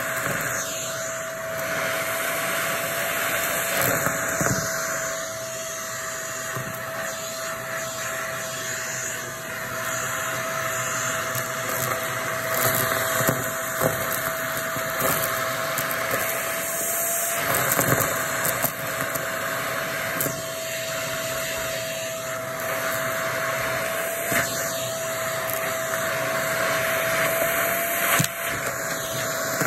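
Shark vacuum cleaner running with a steady motor whine, sucking up crunchy debris that crackles and clicks through the nozzle.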